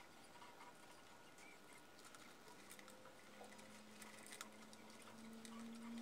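Near silence, with faint light clicks and rustling as hookup wires are handled and moved inside a wooden speaker cabinet. A faint low hum comes in about halfway through.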